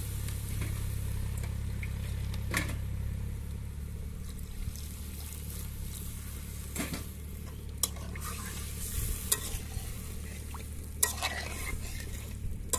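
Curry paste sizzling in a pan as water is added, with a spoon stirring and knocking against the pan about six times.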